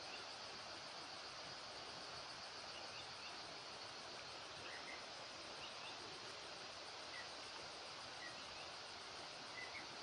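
Faint, steady high-pitched drone of insects, with short bird chirps here and there.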